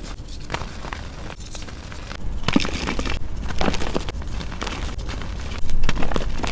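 Soft gym chalk and reformed chalk blocks crushed and crumbled by hand: irregular dry crunching and crackling as the chalk breaks and powder falls. It gets louder from about two seconds in.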